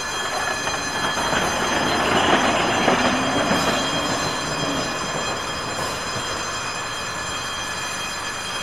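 Vintage electric tram rolling past at close range on ballasted track, its wheels rumbling on the rails. The sound swells about two to three seconds in and then eases off as the tram moves away.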